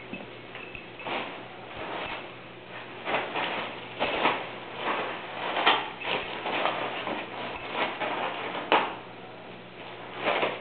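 Small dog rummaging through its Christmas stocking and worrying the things inside on a rug: irregular rustling and scuffling, with a few sharper bursts about four, six and nine seconds in.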